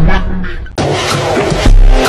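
Background music of a football edit: the track dips and cuts abruptly to a new section about three-quarters of a second in, with a loud deep bass hit near the end.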